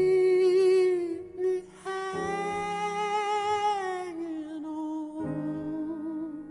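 The closing bars of a slow song: a voice humming three long held notes with vibrato, the middle one sliding down in pitch, over soft sustained accompaniment.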